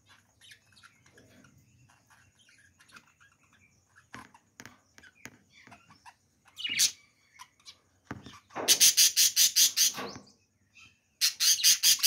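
Budgerigars in an aviary: soft scattered chirps, then a loud, harsh, rapidly pulsed chatter of about six pulses a second for a second and a half, and again near the end. This is the budgies' fight call, which they give when something displeases them and they are in a fighting mood.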